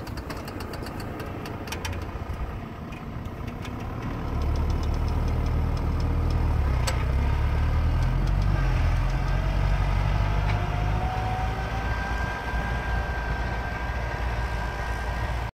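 A vehicle engine running, its low rumble growing louder about four seconds in, with a faint rising whine in the second half.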